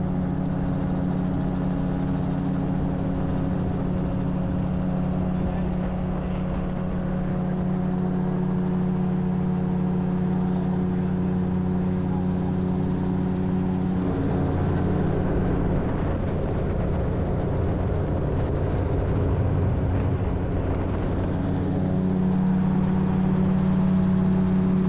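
Gyrocopter's turbocharged engine and pusher propeller droning steadily in flight, heard from the open cockpit with wind rush on the microphone. About halfway through the drone wavers and loses its steady pitch for several seconds, then settles again near the end.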